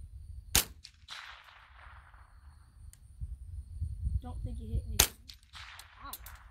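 Two single shots from a Walther Hammerli Tac R1 semi-automatic .22 LR rifle, about four and a half seconds apart. Each sharp crack is followed by a short decaying echo.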